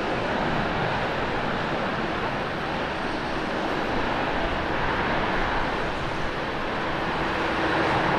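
Jet engines of an All Nippon Airways Boeing 767-300ER running with a steady rushing noise as the airliner rolls down the runway after landing, a little louder near the end.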